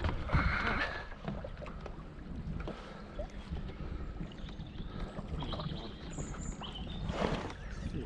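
Wind buffeting the microphone over water lapping against a small boat, with scattered faint knocks.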